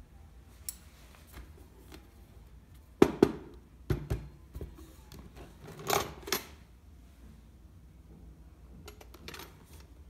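Handling knocks and clatters of a hand mixer in its clear plastic storage case: the case knocks on a wooden tabletop and the loose metal beaters rattle inside as it is lifted and tilted. The loudest knocks come about three, four and six seconds in.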